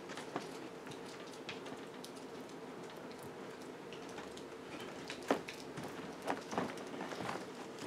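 Scattered small clicks and knocks with light rustling over a faint steady hum: quiet handling and movement noise in a room. The sharpest knock comes about five seconds in, with a few more after it.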